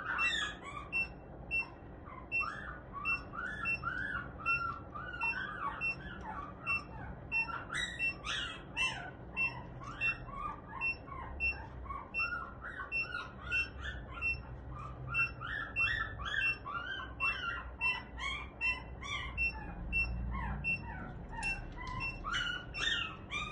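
Many birds chirping busily, with a short electronic beep at one fixed pitch repeating about twice a second underneath.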